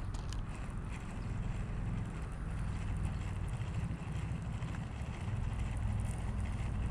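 Steady low wind rumble buffeting the microphone, with an even outdoor hiss.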